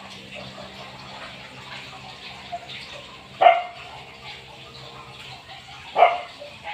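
A dog barks twice, once about three and a half seconds in and again near the end, each a single short bark.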